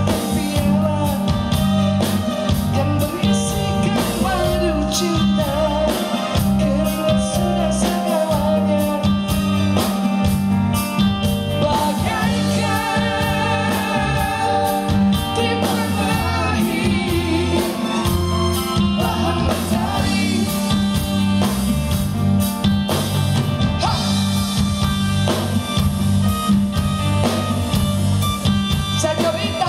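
Live band music: a woman singing lead into a microphone over electric guitar, keyboard and drum kit, with a steady beat.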